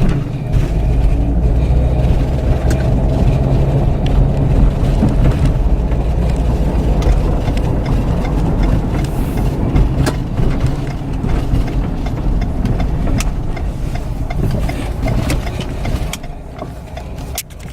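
Car engine and road noise of a car being driven, a steady low rumble that eases off near the end.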